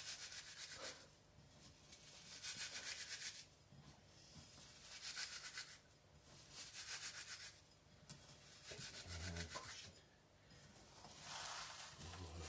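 Dry Rice Krispies being crushed by hand in a bowl: crackly crunching and rustling that comes in repeated bursts about every two seconds.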